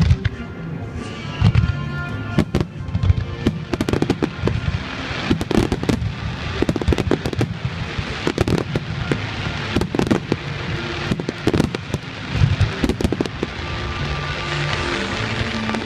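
Fireworks shells bursting in rapid, irregular succession, many sharp bangs a second, with music playing underneath.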